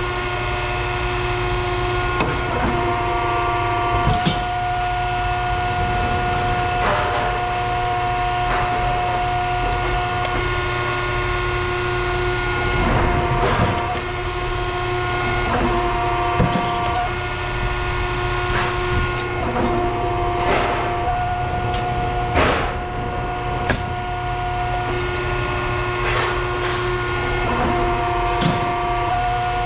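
A machine running with a steady hum and whine that drops out briefly a few times, with scattered clicks and knocks of metal throughout.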